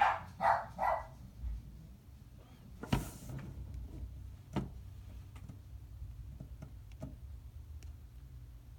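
A dog barks three times in quick succession at the start. A brief rustle follows about three seconds in, then a few faint clicks.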